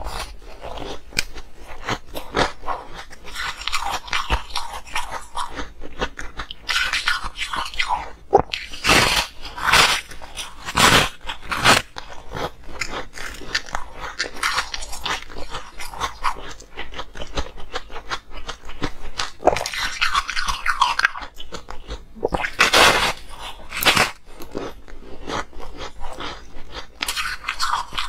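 Close-miked biting and chewing of a frozen block of coloured ice: sharp crunches come in clusters of loud bites, with quieter chewing and crackling between them.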